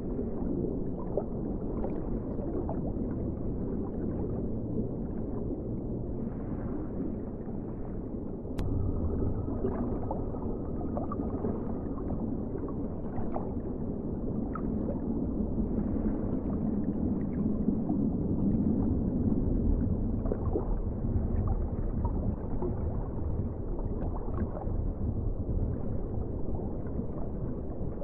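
Underwater ocean ambience: a steady low rumble with small crackles and gurgles, which steps up in level about a third of the way in with a sharp click.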